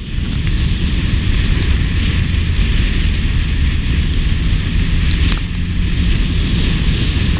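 Audi car driving through snow, heard from a camera mounted on the outside of the car: a loud, steady rumble of wind buffeting the microphone over the car's running noise, with a faint engine hum underneath.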